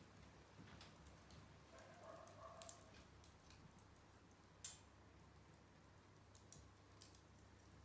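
Small wood fire crackling faintly: scattered soft ticks and snaps, with one sharper pop a little past halfway.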